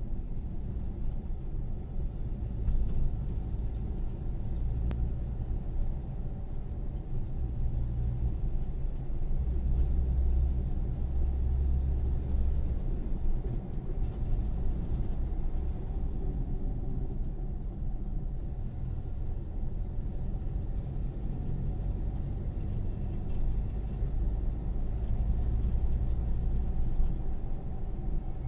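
A car driving at road speed, heard from inside the cabin: a steady low rumble of engine and tyres on the road.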